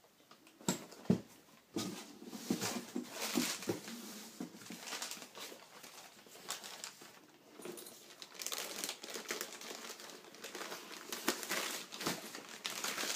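Thin plastic packaging bags crinkling and rustling as the drill and impact driver are unwrapped by hand, with two sharp knocks about a second in.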